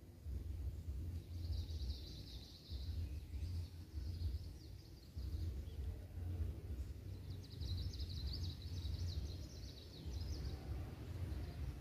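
Outdoor background noise: a steady low rumble with two stretches of high, rapid chirring, one starting about a second and a half in and a longer one from about seven seconds to near the end.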